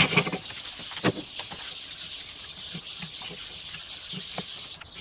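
Lit charcoal briquettes tipped out of a chimney starter clattering onto a kettle grill's metal grate: a loud rattle at the start and another clunk about a second in, then light clicks of briquettes shifted with metal tongs. A steady high hiss runs underneath.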